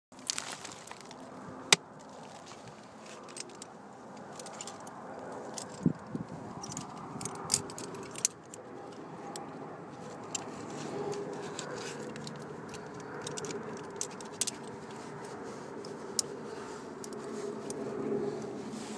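Metal carabiners and climbing hardware clinking irregularly as gear is handled at an ice belay: sharp separate clicks, some seconds apart, over a low rustle.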